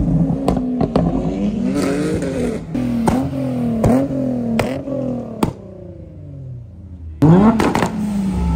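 Sports car engines revving hard as the cars pull past one after another, among them a Lamborghini Aventador and a Nissan 350Z with a large exhaust. Each rev climbs in pitch and ends in a sharp crack. About two-thirds of the way through it drops quieter, then near the end another engine revs up loudly.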